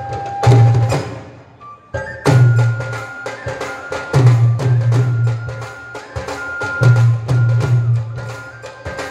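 Punjabi folk ensemble playing: a flute melody moving in steps over heavy dhol strokes, frame drums and clicking hand percussion. The playing nearly stops for a moment about a second and a half in, then comes back in fully at about two seconds.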